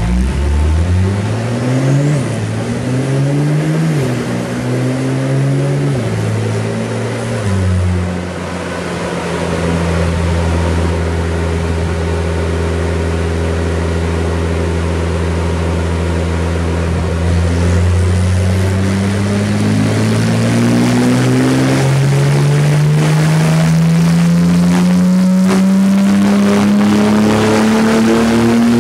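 Stage 2 tuned Porsche 911 (992) Carrera S 3.0 twin-turbo flat-six with an Akrapovic exhaust and its petrol particulate filter deleted, running on a chassis dyno. It gives a few quick revs, holds steady revs for about ten seconds, then climbs evenly and slowly in revs through to the end, with sharp crackles over it in the last few seconds.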